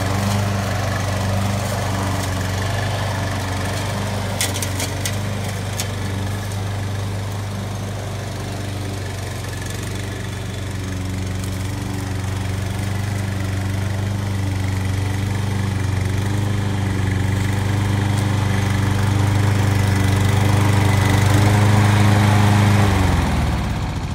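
Engine of an Evatech 22T hybrid remote-control tracked slope mower running steadily as it crawls over rough ground, with a few sharp clicks about four and a half seconds in. Near the end its note drops in pitch and winds down.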